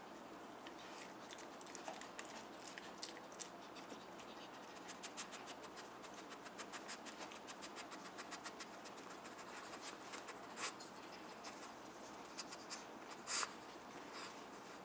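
Small dog pawing and nosing at a treat-stuffed sock toy on carpet: faint scratching and rustling with quick runs of small clicks, and two louder clicks, one about ten and a half seconds in and one about thirteen seconds in.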